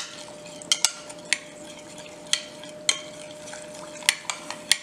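A utensil clinking against the side of a jug while stirring bicarb into boiling water to dissolve it: about eight light, sharp taps at uneven intervals.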